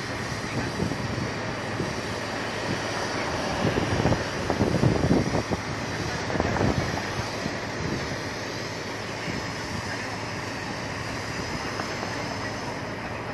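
Fire hose nozzle spraying a steady jet of water, a continuous hiss, over the steady running of the fire truck's pump engine. A few louder low gusts come through around the middle.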